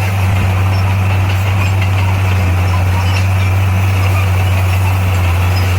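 Diesel engine of heavy earthmoving equipment running steadily, a loud low drone that holds level without revving up or down.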